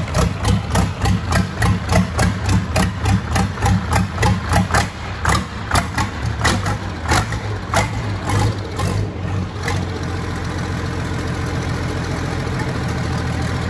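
MAN D0826 inline-six diesel, freshly rebuilt, running on an engine stand. For about the first nine seconds it runs unevenly, with rhythmic knocks about three a second, then it settles into a steady idle.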